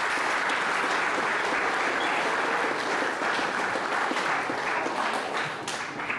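Audience applauding steadily, then fading away near the end.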